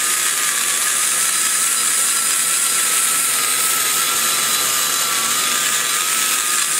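Die grinder with a long-shank carbide burr running at a steady high-pitched whine while cutting into the exhaust port wall of a big-block Chevy cylinder head. The pitch wavers slightly as the burr bites, over a hiss of grinding.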